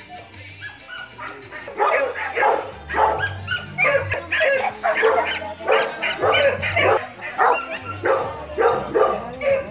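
Dog barking over and over, several short barks a second, getting louder about two seconds in.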